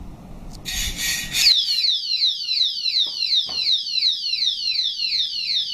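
A saw rasps briefly on the chain, and about a second and a half in the alarm padlock's siren goes off, set off by the sawing. The siren is a loud repeated falling whoop, about four a second.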